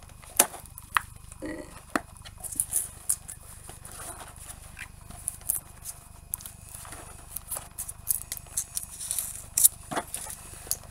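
Flat cardboard snack box being worked open by hand: scattered taps, scrapes and rustles of cardboard.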